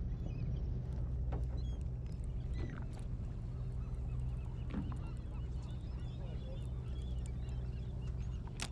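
Fishing boat's engine running with a steady low hum, while many short bird calls chirp and squawk over it.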